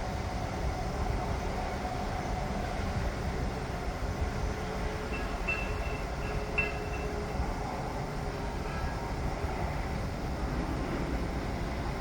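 Construction-site machinery giving a steady low rumble, with two brief high-pitched tones a little past halfway.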